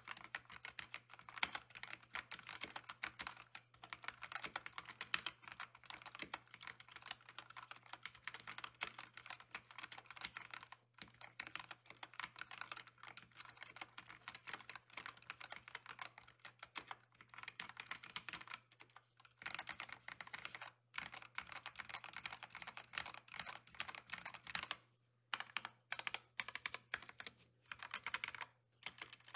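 Mechanical keyboard being typed on fast and continuously in a typing sound test, a dense run of key clacks with a few brief pauses. A faint steady low hum sits underneath.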